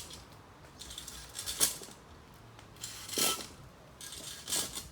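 Sharp metallic clanks from a coconut-tree climbing device, about one every second and a half.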